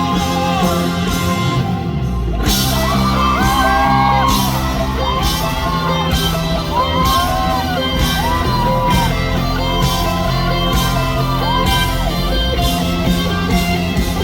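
Live band music in a large hall: a wordless lead melody of sliding, held notes comes in about two and a half seconds in over a full band with a steady beat.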